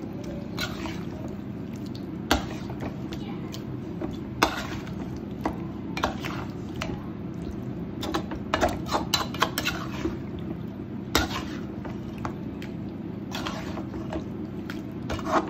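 A wooden spatula stirring mutton pieces through a thick curd and spice mixture in a metal kadhai, scraping and knocking against the pan in irregular clicks, busiest about eight to ten seconds in, over a steady low hum.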